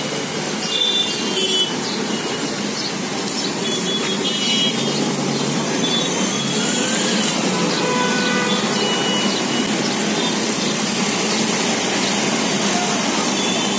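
Steady traffic noise of a busy city street, a continuous hum of passing vehicles, with a few short high-pitched tones scattered through it.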